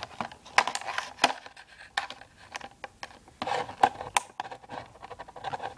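Knife cutting into a stiff clear plastic clamshell pack, with irregular sharp clicks and crackling scrapes of the plastic.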